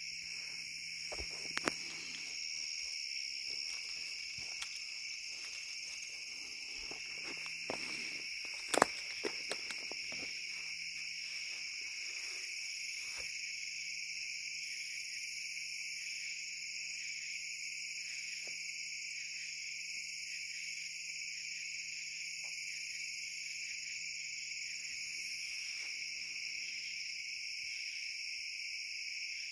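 Steady chorus of night insects, an even high-pitched trill that never lets up. A few sharp knocks cut across it, the loudest nearly nine seconds in.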